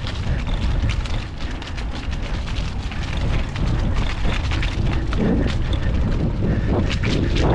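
Wind buffeting the microphone of a handlebar-mounted GoPro HERO8 on a mountain bike being ridden over rough trail: a steady low rumble with frequent small rattles and knocks from the bike.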